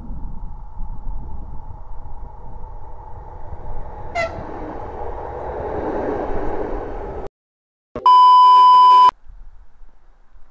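Double-deck electric train approaching and passing close by, its rumble building over several seconds, with a brief toot about four seconds in. The sound then cuts off to silence and a loud, steady bleep tone sounds for about a second.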